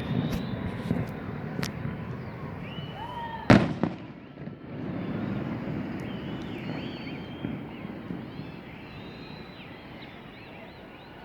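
Large aerial firework shells bursting: a run of sharp cracks, then one loud bang about three and a half seconds in, over a low rumble that fades toward the end.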